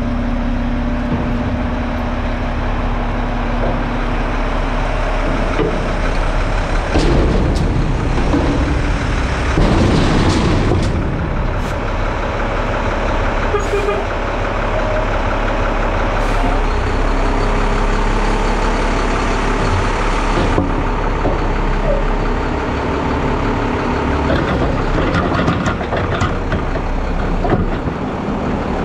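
Mack front-load garbage truck running, its hydraulic forks working a steel dumpster, with loud metal knocks and clanks about seven and ten seconds in.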